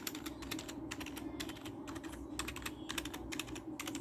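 Keys of a K-Snake KM320 keypad being pressed in a quick, irregular run of clicks, several a second, as the keycaps are tested, over a faint steady low hum.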